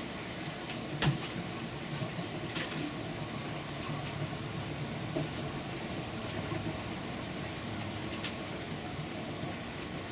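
Steady trickle of water running through NFT pipes, with a few sharp snips of scissors cutting old strawberry growth: one about a second in, another soon after, and a bright one near the end.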